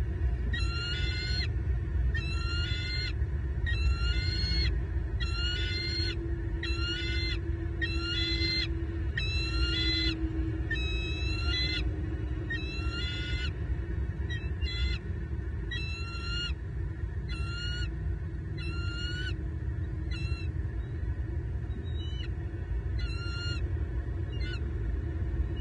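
Adult bald eagle calling: a long, steady series of short, high, squeaky rising notes, a little more than one a second, briefly fainter a couple of times. A steady low rumble runs underneath.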